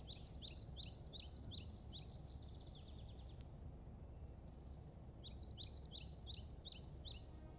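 A songbird singing runs of short, repeated down-slurred whistled notes, about three a second, once early and again from about five seconds in, over a faint steady outdoor rumble.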